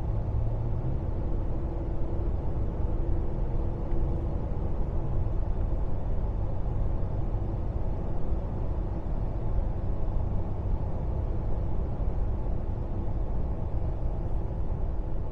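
Steady road and engine noise inside the cab of a Toyota Tacoma pickup cruising on the highway, a low even rumble with no sudden changes.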